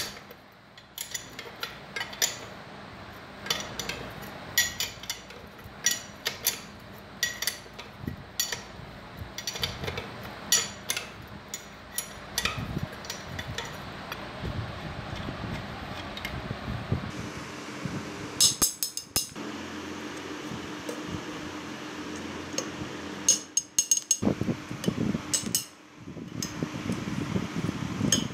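Irregular metallic clicks and clinks of a spanner on the connecting-rod nut inside an old air compressor's cast-iron crankcase, over a steady background hum.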